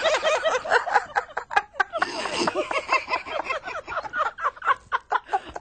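People's voices, with laughing and snickering mixed into indistinct talk.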